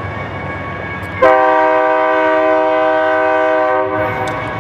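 BNSF diesel locomotive approaching with its engine rumbling, then its air horn sounding one long, steady blast, a chord of several notes that starts about a second in and lasts nearly three seconds.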